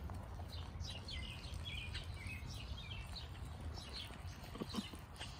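Small birds chirping and calling repeatedly outdoors over a steady low rumble, with a brief short sound about four and a half seconds in.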